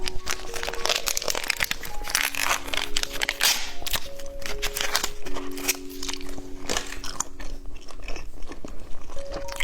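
Close-miked crunching and chewing of a candy snack, a dense run of irregular crisp crunches all through, over soft background music of held notes.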